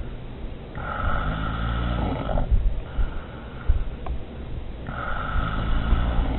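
A person snoring loudly, with long snores about four seconds apart: one starting about a second in, a weaker breath between, and another starting near the end.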